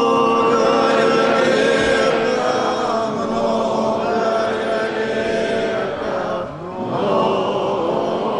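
Orthodox church choir chanting in slow, long-held chords, with a brief break and new phrase about two-thirds of the way through.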